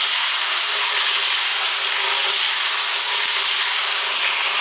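Small portable concrete mixer running, its drum turning on its gear drive with a steady mechanical whir over a faint constant hum.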